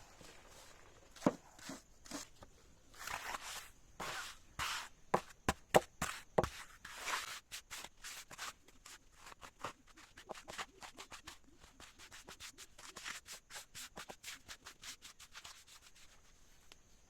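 Repeated hand scraping strokes on a hard surface, with a few sharp knocks among them early on. From about ten seconds in they settle into a quicker, even rhythm of about four strokes a second, then stop shortly before the end.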